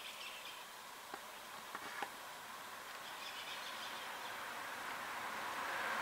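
Quiet roadside ambience with faint bird chirps and a few small clicks about one and two seconds in; near the end a car approaches along the road, its tyre and engine noise growing steadily louder.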